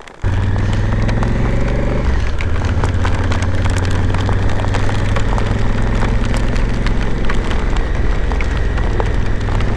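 Motorcycle engine running steadily under way, its note changing about two seconds in, with rain spattering the camera in sharp ticks throughout.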